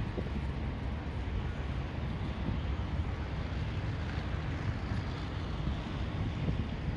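Steady low rumble with a fainter hiss over it: outdoor background noise with no distinct event.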